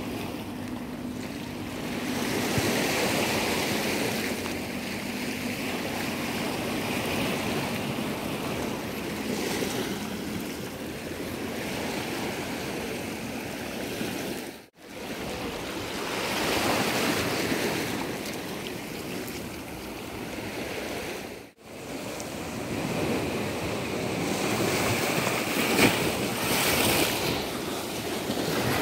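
Small sea waves washing over a rocky shore, swelling and easing every few seconds, with wind on the microphone. The sound drops out briefly twice.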